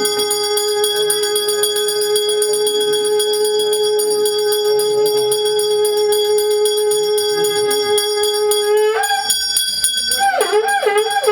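Devotional ritual music: one long steady held note that steps up slightly about nine seconds in and wavers near the end, with a small hand bell rung rapidly throughout.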